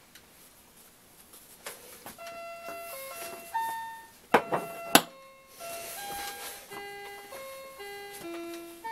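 Electronic keyboard playing a slow melody of single held notes, starting about two seconds in. Two loud sharp knocks a little past the middle are the loudest sounds.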